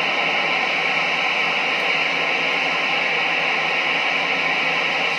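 CB radio receiver hissing with steady static, the squelch open and no station coming through.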